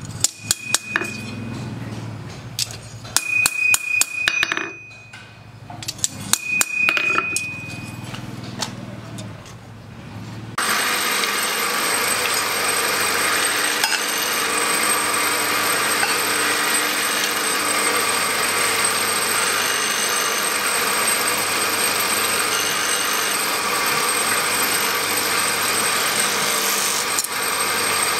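Hammer tapping a steel knife blade on an anvil in quick bursts of light strikes, some leaving a high ring. About ten seconds in this cuts abruptly to a motor-driven grinding wheel running steadily, a hiss with a thin high whine.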